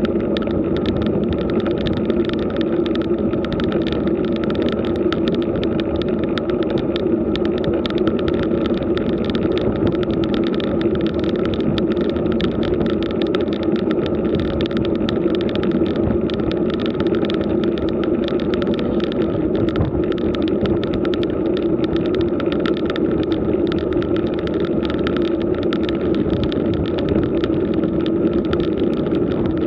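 Steady riding noise from a camera mounted on a road bike: tyres rolling on asphalt and the running bike, with a constant hum.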